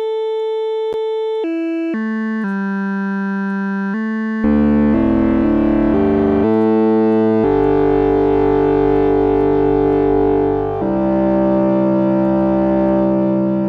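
Three wavetable oscillators in a Voltage Modular software synth patch play scale-quantized notes. The sound starts as one steady note, breaks into stepping notes after about a second and a half, and from about four and a half seconds in becomes louder, fuller chords with low notes that change every second or few. The voices are fanning out from unison as the pitch spread is turned up.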